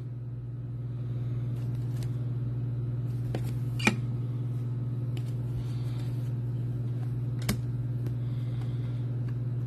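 A steady low hum runs throughout, with two light clicks, about four seconds in and again near seven and a half seconds, as trading cards are handled.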